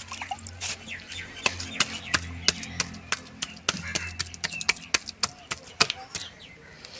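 A hand patting and pressing a slab of wet clay mixed with straw, for building a tandoor: a run of sharp, irregular slaps and clicks, several a second, with a faint low hum under the first few seconds.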